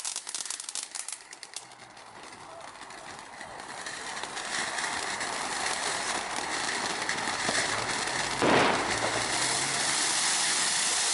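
Ground fountain firework going off: a spatter of crackling pops at first, then a steady hiss of spraying sparks that builds up, with one brief louder burst about eight and a half seconds in.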